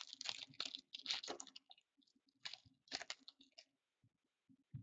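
A hockey card pack's foil wrapper crinkling as it is opened by hand, in two bouts of crackling with a short pause between.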